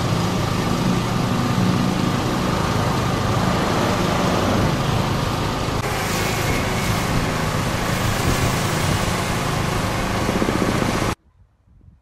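An engine running steadily at idle, with a hiss joining about halfway through. It cuts off abruptly near the end.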